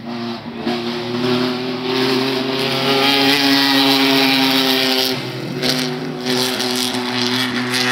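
Rally car's engine passing at speed, its note loud and steady, with a short dip about five seconds in before it picks up again.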